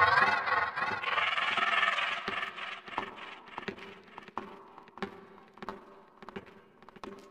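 The tail of warbling, pitch-bending music gives way to a hissing noise for about a second. Then a clock ticks steadily, about three ticks every two seconds, slowly getting fainter.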